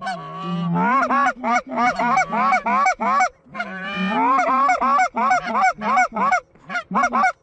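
Hunters' goose calls blown close by: a rapid string of honks and clucks, about three a second, each sweeping up in pitch, with short breaks near the middle and shortly before the end. It is calling to bring in an approaching flock.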